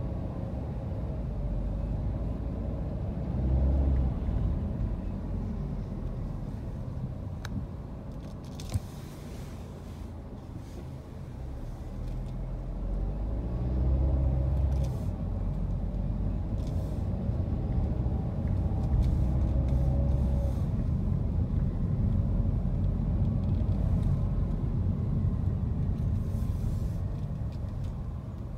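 Low rumble of a car driving, heard from inside the cabin, swelling and easing a few times, with one sharp click about nine seconds in.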